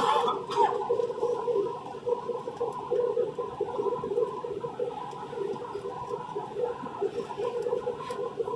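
Airbus A320 cabin noise during the approach: a steady, wavering hum of engines and airflow, with a brief rushing noise at the very start.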